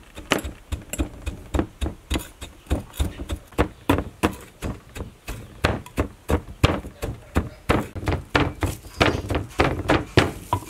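Pestle pounding in an earthenware mortar: a steady run of dull thuds, about three a second.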